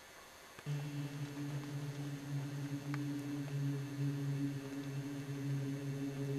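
A faint hiss, then, suddenly under a second in, a steady low humming drone starts: one held pitch with overtones, like a voice humming or chanting a single sustained note.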